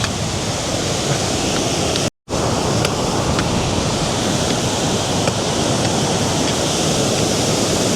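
Lake Superior waves surging on the shore: a steady, loud rush of surf, possibly with some wind on the microphone, that cuts out for a moment about two seconds in.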